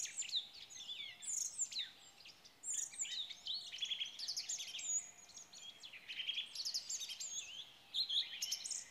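Several songbirds singing at once, a dense chorus of high chirps and whistled phrases overlapping without a break.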